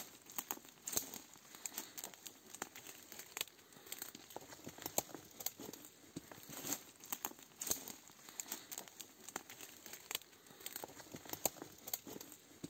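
Footsteps crunching and rustling on dry ground, irregular sharp crackles a few times a second.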